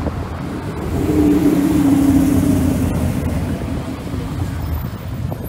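Ford performance car's exhaust as the car drives past: a steady engine note swells about a second in and fades after about three seconds, over a low rumble.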